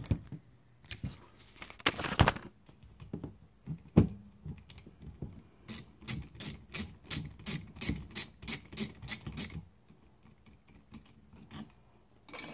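Hobby motor with a propeller attached, driven through an ESC, sputtering: irregular clicks and knocks, then a regular run of sharp clicks about three a second that stops about ten seconds in. The stutter comes from the ESC resetting, which happens only when a prop is on.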